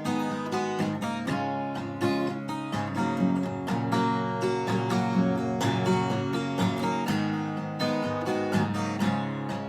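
Acoustic guitar strummed in a steady rhythm, playing the instrumental introduction to a folk song before the vocals come in.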